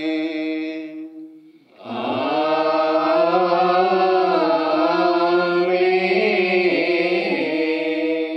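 Sung Malayalam liturgical chant. A held note fades out about a second in, then after a short pause comes one long held phrase that wavers slowly in pitch.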